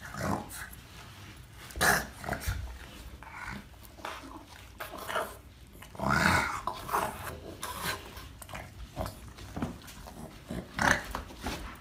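A Boston terrier squirming on carpeted stairs, its body rubbing and scratching against the carpet and wall. There are two short vocal noises from the dog, about two and six seconds in.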